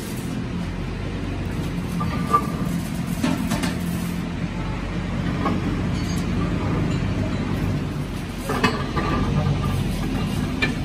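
Steady low machine hum in a lathe workshop, broken by several sharp metal knocks and clanks as a drive shaft is handled and seated in the lathe's chuck.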